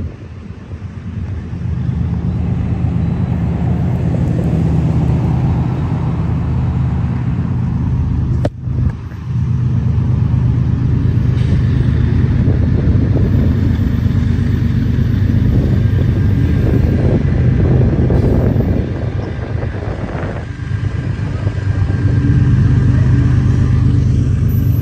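Diesel locomotive BNSF 4246 approaching at the head of a freight train: a steady low engine drone that grows louder near the end, with a brief gap in the sound about eight seconds in.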